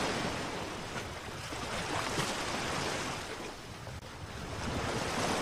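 Ocean surf sound effect: waves washing in and out, swelling and easing, with a lull about three and a half to four seconds in.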